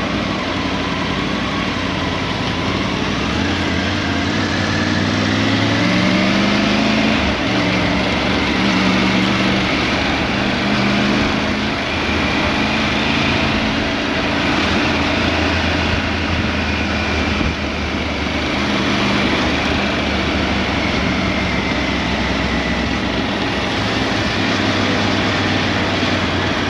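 Motorcycle engine running on the move, its pitch rising and falling several times with throttle and gear changes, over a steady rushing noise.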